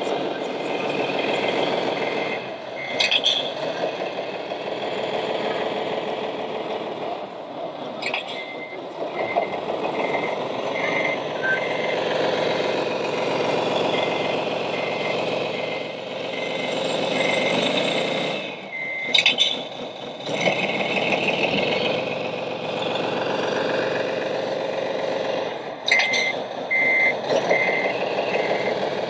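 Reversing alarm from a radio-controlled tipper truck's sound module: short beeps at one pitch, about two a second, over the module's steady diesel-engine sound as the model backs up. The beeping pauses for a while late on and resumes near the end, and a few sharp clicks or hisses break in.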